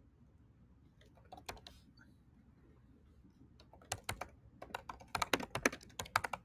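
Typing on a computer keyboard. A few clicks come about a second and a half in, then a quick run of keystrokes from about four seconds in as a line of text is typed.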